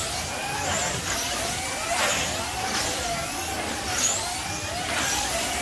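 Wing slot cars' small electric motors whining as they lap the track, the pitch rising and falling as the cars brake and accelerate through the turns, with a swish of a car passing about once a second.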